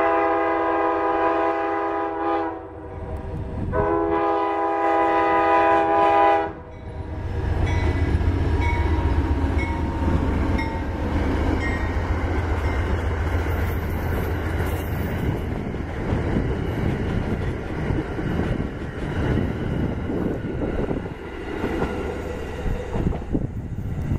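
Amtrak GE Genesis diesel locomotive sounding its multi-note horn in two long blasts. The locomotive then passes close by with a heavy low engine rumble, followed by the passenger cars' wheels rumbling and clattering over the rails.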